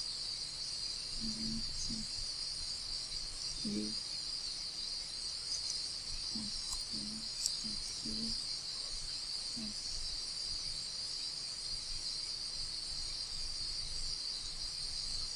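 A steady, high-pitched hissing drone runs in the background. Faint, short murmured sounds from a voice come at a few points, and there are a couple of soft clicks about halfway through.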